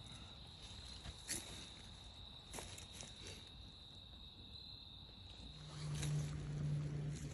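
An insect trills steadily on one high, unbroken note for about five seconds, with a few faint crackles of dry leaf litter. A little over five seconds in, the trill stops and a low steady hum starts.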